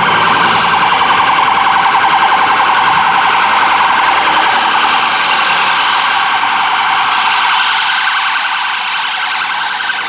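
Emergency-vehicle siren sounding a fast warble, loud and steady, easing off slightly near the end.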